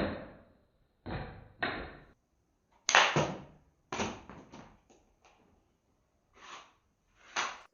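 Hand tools working wood: about ten separate knocks or strokes at uneven spacing, each with a short fading tail, with silence between them.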